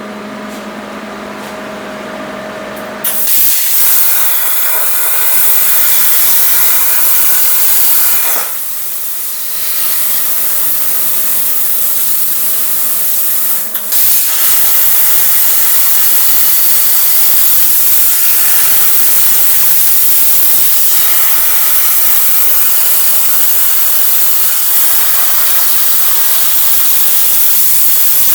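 Prime Weld Cut 60 plasma cutter on an ArcDroid CNC robot cutting steel plate at 45 amps: a loud, steady hiss of the arc and compressed air that starts about three seconds in, drops away briefly around eight seconds in, and runs on again from about fourteen seconds in.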